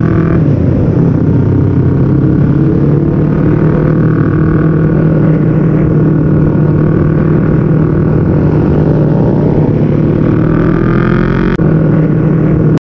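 Yamaha YZF-R25's parallel-twin engine running steadily at low speed, heard through an onboard camera mounted on the bike. The note rises a little near the end, then cuts off suddenly.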